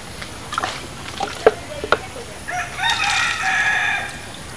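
A rooster crows once, a long call of about a second and a half in the second half. Before it come a few short wet clicks and splashes of hands working in a muddy, water-filled hole.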